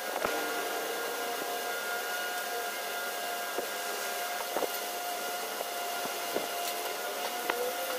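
A motor running steadily, a held whine over a hiss of rushing air, with a few faint clicks.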